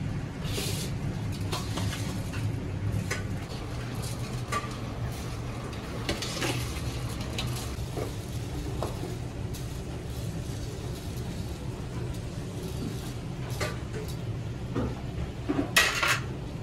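Steady low hum in a kitchen, with scattered clinks, knocks and scrapes of metal utensils against pots. The loudest clatter comes near the end.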